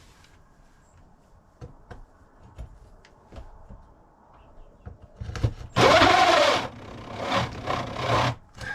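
Cordless drill motor running in short, uneven bursts about halfway in, speeding up and dropping off again, after a few light handling clicks. Its battery is cold and struggling to drive the drill.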